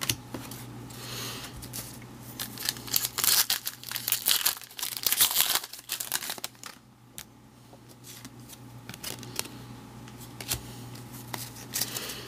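Baseball card pack wrapper being torn open and crinkled by hand, loudest and densest a few seconds in, then dying down to light rustling and small clicks as the cards are handled.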